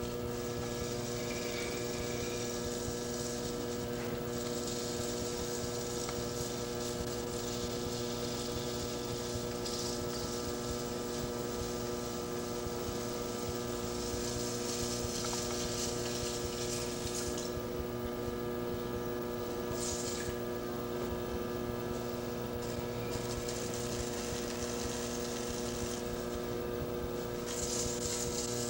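Electric potter's wheel running with a steady hum, while wet clay is thrown on it; a soft hiss comes and goes every few seconds as hands work the spinning clay.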